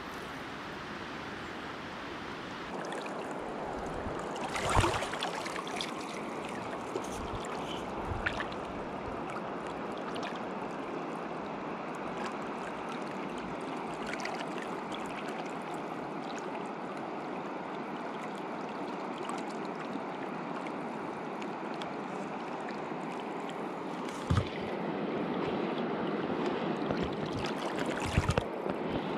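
Steady rush of a fast-flowing river, with a few short knocks, the loudest about five seconds in. The water grows a little louder near the end.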